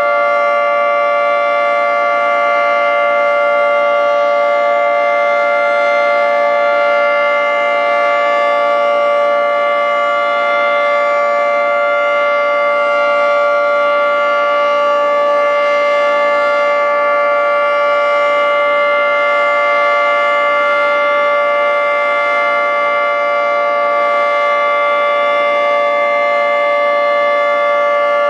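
Federal Signal 3T22 outdoor warning siren sounding a chord of several steady tones held at a constant pitch: the steady alert signal of a siren test.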